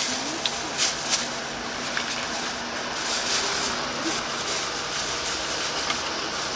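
Thin black plastic carrier bag rustling and crinkling as it is handled and tied around a takeout box, with a few sharper crinkles about a second in. A steady mechanical hum runs underneath.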